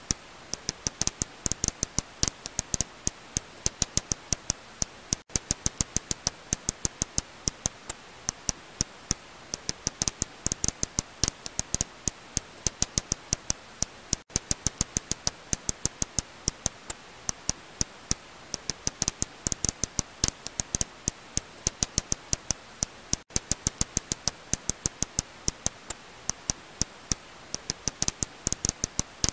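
Serotine bat calls made audible by a bat detector: a steady train of sharp clicks, several a second, over a faint hiss.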